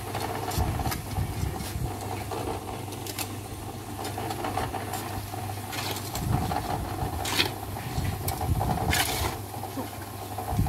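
Small portable drum concrete mixer running with a steady hum. A few short scraping strokes come in the second half, which fit a shovel working on the concrete slab.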